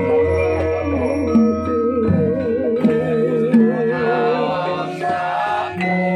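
Javanese gamelan playing: bronze metallophones and gongs ring steadily under the beat of a drum, with voices singing over them. A singer holds a long note with a wide, slow vibrato about two to four seconds in.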